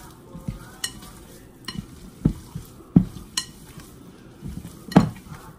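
Hands kneading sticky cassava-starch (polvilho) biscuit dough in a glass bowl: irregular squelching and soft thumps of dough and hands against the glass, with a few sharp clicks. The loudest thump comes about five seconds in.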